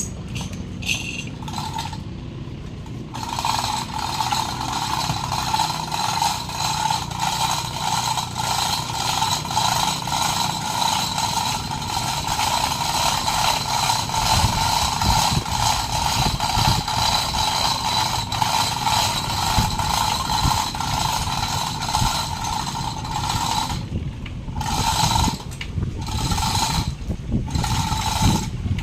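Small power tool motor running with a steady whine, then switched on and off in short bursts near the end.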